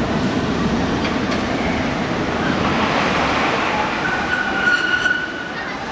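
Tram running, heard from on board: a steady rumble of the moving car, with a high squealing tone for about a second near the end.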